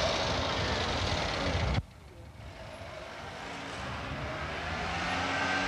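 A car driving past close by, the noise cutting off suddenly about two seconds in. Quieter street traffic follows, slowly growing louder as another car approaches.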